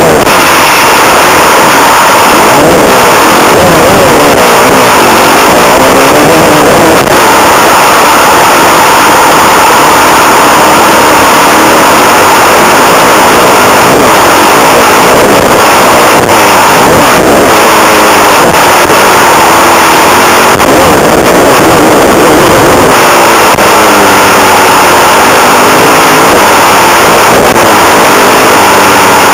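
Suzuki motocross bike's engine revving up and falling back again and again as it is ridden hard around a dirt track, heard from the rider's helmet with a steady rush of wind noise. The recording is loud throughout, held at full level.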